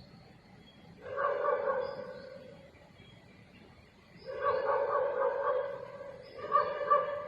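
Rural Chinese native dog barking in three bouts of rapid, strained barks, the longest in the middle. Faint bird chirps sound behind it.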